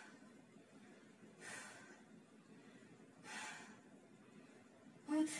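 A woman breathing hard while holding a wall sit: sharp breaths about every two seconds, the last one near the end voiced.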